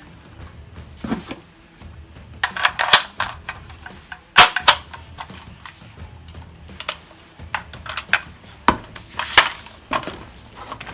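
4.5 mm (.177) CO2 AR15-style air rifle firing: sharp pops, some single and some in quick strings, with the loudest pair about four and a half seconds in.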